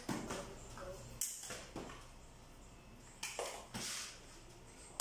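A rubber play ball being thrown, bounced on a tile floor and caught by a child: a handful of short, sharp slaps and thumps at irregular spacing.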